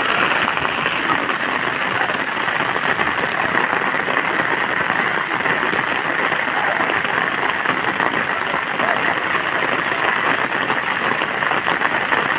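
Rain falling steadily, an even pattering hiss.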